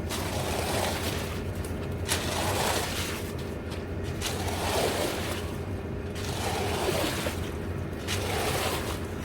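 An engine running steadily, with rough scraping and sliding noises rising and falling over it about once a second.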